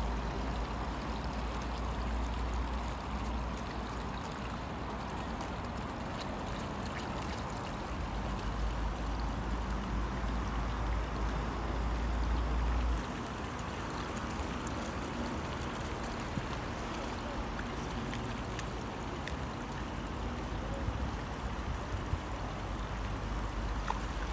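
Meltwater running and trickling through a drainage ditch and culvert, a steady flowing sound, with a low rumble underneath that cuts off suddenly about halfway through.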